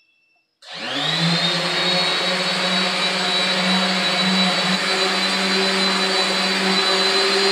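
Handheld corded electric car buffer switched on about half a second in, spinning up and then running steadily with a high whine, its pad working cleaning solution into a faded plastic badge panel.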